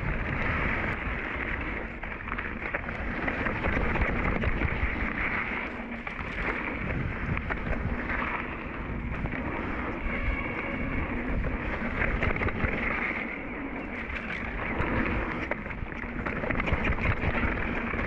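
Wind buffeting the microphone over the rumble and rattle of a mountain bike's tyres rolling on a dirt trail, swelling and easing in loudness.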